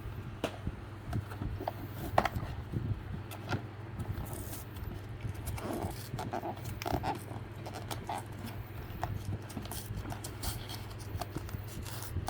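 A cardboard blind box and its packaging being handled and worked open: a run of crinkles, clicks and scrapes, with a few short squeaks about six and seven seconds in, over a steady low hum.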